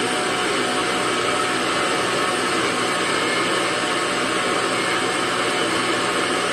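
Nutribullet personal blender's motor running steadily, blending a cup of green juice with fruit, ginger and ice.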